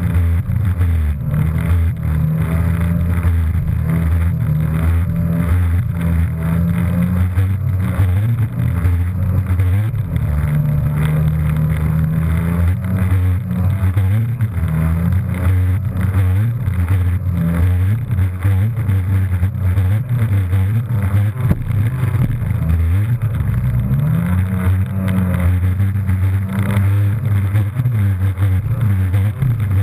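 Jet ski engine running at speed, its pitch rising and falling several times with the throttle, over the rush of water spray and wind buffeting the microphone.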